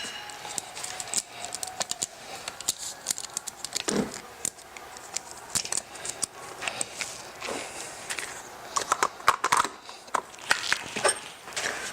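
Irregular clicks, knocks and rattles of metal and plastic parts being handled as a chainsaw's guide bar, chain and side cover are fitted together onto the chain tensioner.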